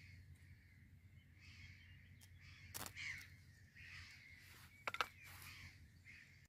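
Ferro rod scraped against fatwood shavings to throw sparks, with one sharp scrape a little under three seconds in and a few quick clicks about five seconds in, as the tinder catches light.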